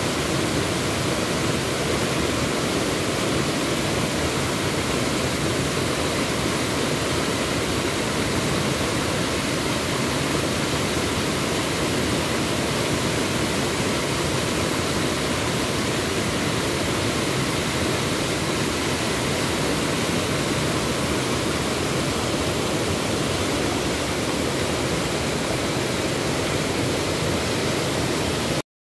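Muddy floodwater rushing over a rocky waterfall: a steady, even rush of water that cuts off suddenly near the end.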